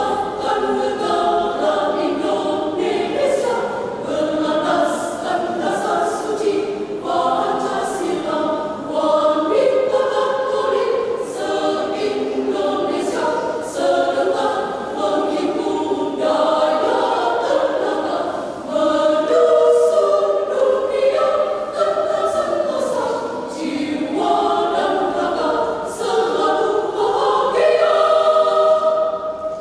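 Women's choir singing a piece in several parts, in phrases that swell and ease off.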